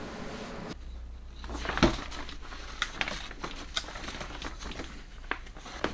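Pages of a paper instruction booklet being turned and handled, giving scattered light rustles and clicks over a low hum. A single thump comes about two seconds in.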